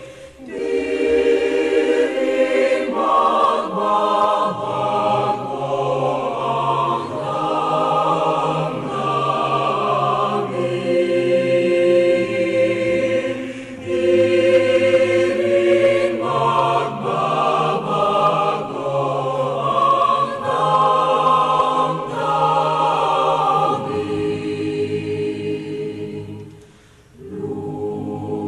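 A choir singing sustained chords in phrases, with a brief drop in level near the end before the singing resumes.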